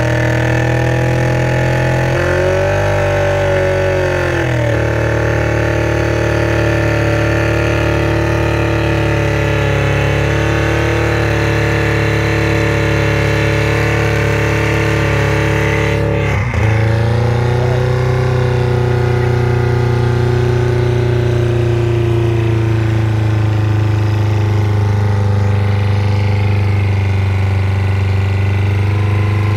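Volkswagen Golf Mk3 engine held flat out at full revs, a steady, loud running note that sags and recovers a couple of seconds in and dips sharply about sixteen seconds in before picking back up. The engine is being run to destruction and is pouring smoke.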